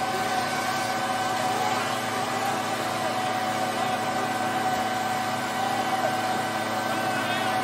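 Steady drone of an engine-driven machine running at constant speed, with a hum that holds one pitch.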